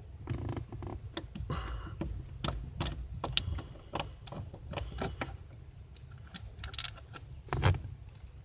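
Irregular small clicks and scrapes of a stubby screwdriver working a small screw out of the plastic trim behind a car's steering wheel, over a low steady hum.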